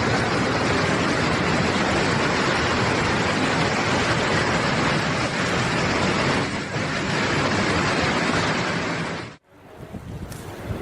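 Landslide of rock and mud crashing down a rain-soaked mountainside: a loud, steady rushing noise that cuts off abruptly about nine seconds in, leaving a fainter hiss.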